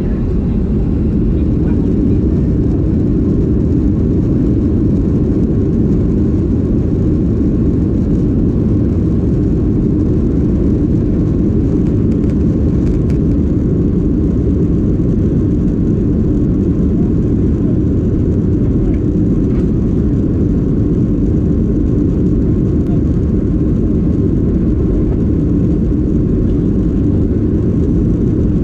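Cabin noise of a Boeing 737-800 with its CFM56-7B jet engines running: a steady, low-pitched roar of engine and airflow heard from inside the cabin.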